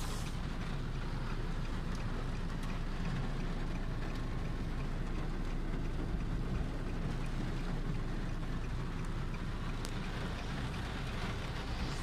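Steady engine and tyre rumble inside a car driving on a flooded road, with the hiss of heavy rain on the car.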